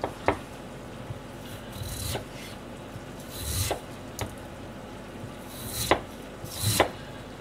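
Kitchen knife cutting the skin off a daikon radish on a plastic cutting board: about six short rasping slices and light knocks, spaced irregularly.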